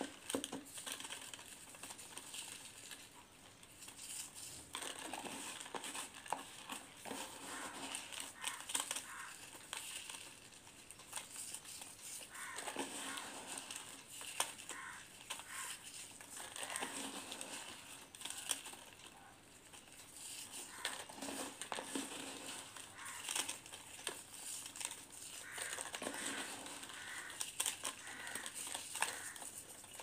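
A hand squeezing and kneading a wet, white crystalline mass in a glass bowl: gritty crunching and crackling of the grains, rising and falling in waves every few seconds with each squeeze.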